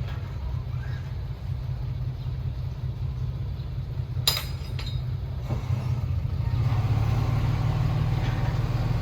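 Diesel engine of heavy earthmoving machinery running with a steady low rumble that grows louder about two-thirds of the way through as it works harder. A sharp knock, with a lighter one just after, comes about halfway.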